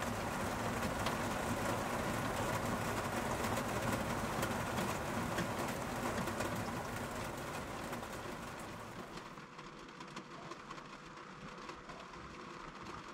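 Rain falling on a camper van, a steady hiss of many small drop hits. It turns quieter about nine seconds in.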